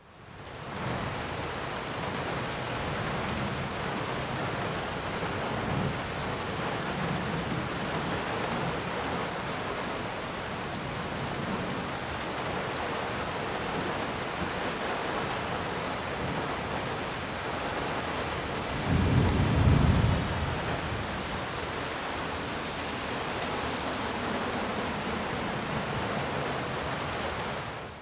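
Mountain creek running over rocks and small cascades, a steady rush of water. About two-thirds of the way through comes a brief low rumble lasting a second or so.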